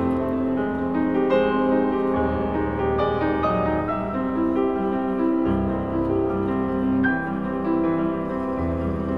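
Background music: piano, with sustained notes and a low bass underneath.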